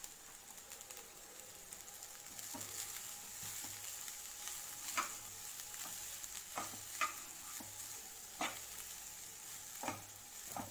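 Slotted steel spatula stirring and turning boiled rice through coriander paste in a hot kadai, over a faint steady sizzle. Several sharp scrapes and clicks of the spatula against the pan come in the second half.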